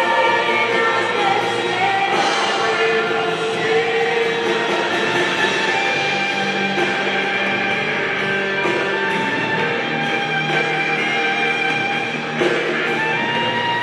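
Worship band playing with group singing, sustained sung notes over the instruments, with a brief dip and a change of chord about twelve seconds in.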